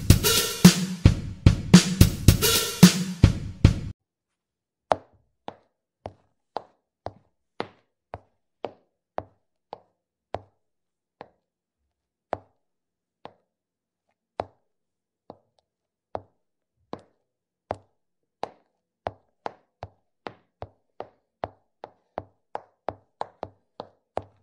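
Drum-heavy music that cuts off abruptly about four seconds in. After that, against silence, comes a long run of single short taps, irregularly spaced at roughly one to two a second: the footstep sounds of a walking cartoon figure.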